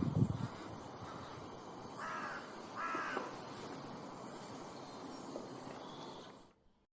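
A crow cawing twice, two harsh calls in quick succession, over steady outdoor background hiss. A few low thumps come at the start, and the sound fades out near the end.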